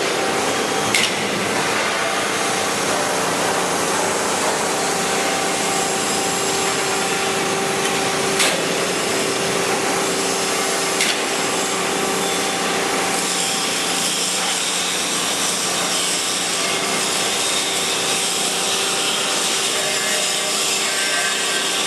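Sheet-metal bending machine running with a steady mechanical noise and a low hum, with three sharp metallic knocks about one, eight and eleven seconds in.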